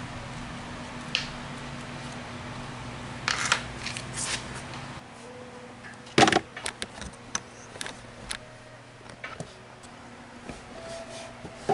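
Plastic-framed cabin air filter and its plastic housing being handled: rustling, tapping and clicking of plastic, the loudest a sharp knock about six seconds in, followed by a string of smaller clicks. A low steady hum underneath stops about five seconds in.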